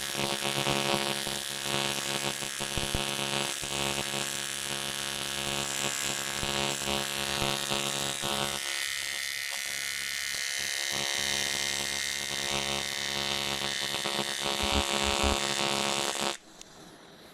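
Argon-arc (TIG) welding arc on an aluminium steering knuckle from a three-phase welder: a steady harsh buzz with hiss and crackle that cuts off suddenly near the end as the arc is broken.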